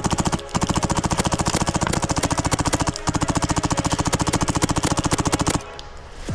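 Airsoft gun firing long fully automatic strings, a rapid, even stream of shots. There is a short break about half a second in and another around three seconds, and the firing stops shortly before the end.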